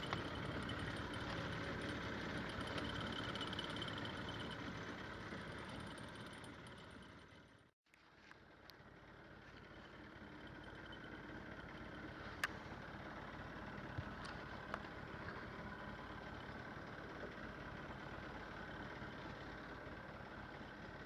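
Boat engine running steadily. The sound fades out and drops to silence about eight seconds in, then a similar steady engine noise comes back with a few faint clicks.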